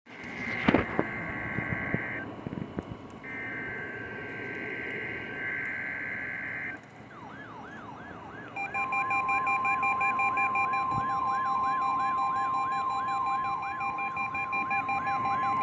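NOAA Weather Radio weekly alert test. First come three harsh buzzing bursts of the digital SAME header. About seven seconds in, an alert receiver's siren starts yelping, sweeping down about twice a second. From about nine seconds on, it is joined by the steady 1050 Hz warning alarm tone.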